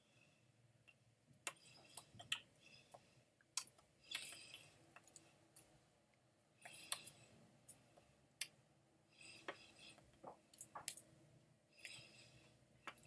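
Very faint, barely audible speech from a man talking, with many small clicks and mouth noises.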